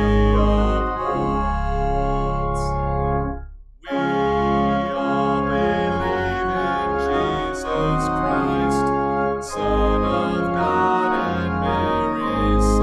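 Organ playing a hymn in held chords, with a short break between phrases about three and a half seconds in.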